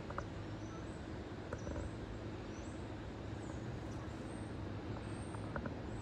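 A flock of migrating geese flying overhead, giving a few short, scattered honks over a steady background rumble.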